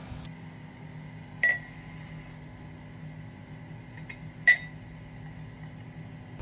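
Two sharp glass clinks about three seconds apart, each ringing on briefly: a glass bottle knocking against the rim of a wine glass while a drink is poured.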